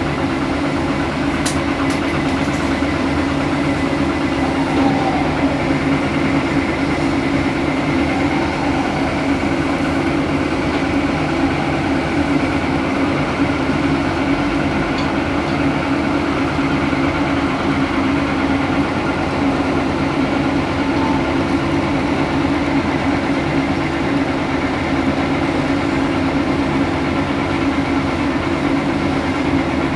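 Caterpillar 330D L excavator's diesel engine running steadily as the machine digs dirt and loads it into a dump truck, with a few faint clicks near the start.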